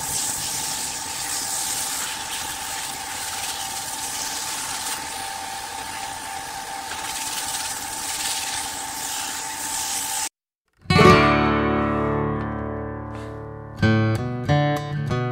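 Wood lathe running while sandpaper is held against the spinning wooden spindle: a steady hiss with a steady whine under it. About ten seconds in it cuts off abruptly, and after a brief silence acoustic guitar music starts.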